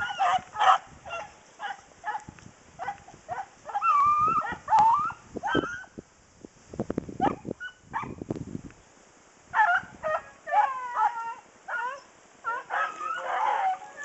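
A pack of beagles baying on a scent trail: many short, overlapping yelps and bawls from several dogs, rising and falling in pitch. A rush of wind on the microphone fills a lull a little past the middle.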